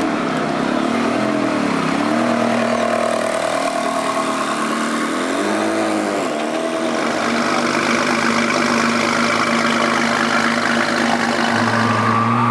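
Ferrari 360 Modena's V8 running at low speed as the car rolls away, its pitch rising and falling in two short throttle blips. Near the end a different engine, a Lamborghini Gallardo's V10 idling, takes over with a steady note.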